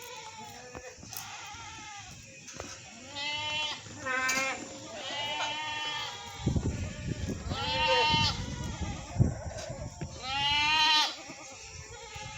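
Goats bleating: about five separate wavering calls, the loudest about two-thirds of the way in and near the end. A low rumbling noise runs beneath the middle calls.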